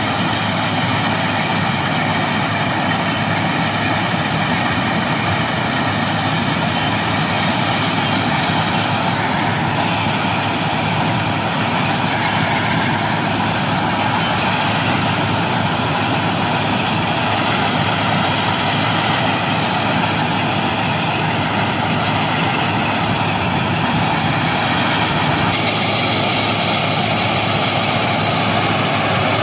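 Plasser FRM-85F track machine working: its engines and conveyors run as a loud, steady mechanical din, with a slight change in tone about a third of the way in and again near the end.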